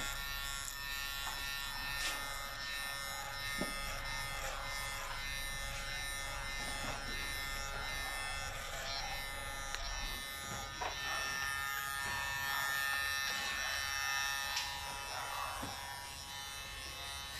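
KM-719 electric hair clippers running with a steady buzz while trimming hair around the ear.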